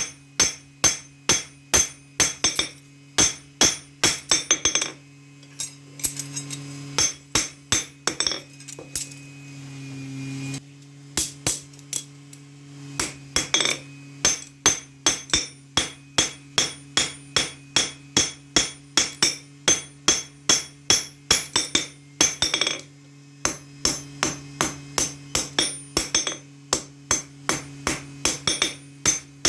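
Hammer blows on metal in a steady rhythm, about two a second, as in forging a knife blade, over a steady low hum. The blows stop for about five seconds early on, then resume.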